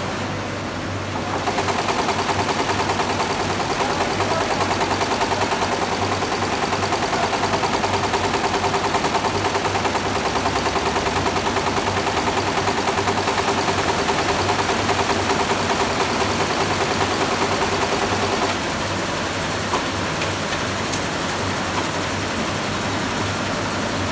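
Computerized embroidery machine stitching at speed: a fast, even rattle of needles that starts about a second in and stops abruptly a few seconds before the end, leaving a steady machine hum.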